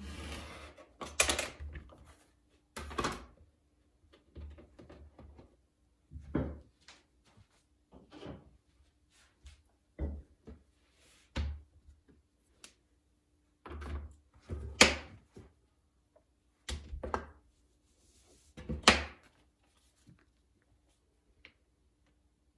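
Irregular knocks and thunks, about eight louder ones spread through, as tools and objects are picked up, handled and set down on a work surface during clay hand-building.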